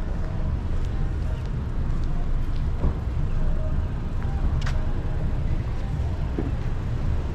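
City street ambience: a steady low rumble of traffic, with faint voices and a few brief clicks.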